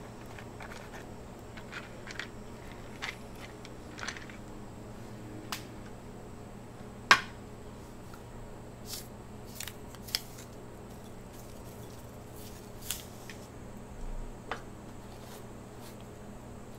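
Scattered light clicks and taps of utensils and containers being handled as food is sauced and seasoned, with one sharp click about seven seconds in. A low steady hum runs underneath.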